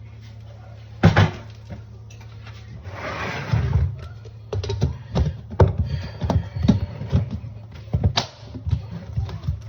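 A sharp knock about a second in, a short rush of noise around three seconds, then a run of irregular knocks and taps, over a steady low hum.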